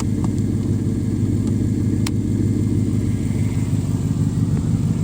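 Mercedes-Benz 400E's V8 engine running steadily at idle, already warmed up and into closed loop.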